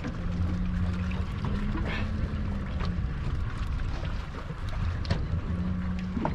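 Fishing boat at sea: a steady low engine hum with wind and water noise and a few light clicks.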